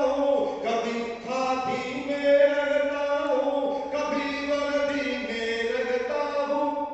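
A man singing verses of a Hindi poem in a chanted, melodic recitation, in long held phrases.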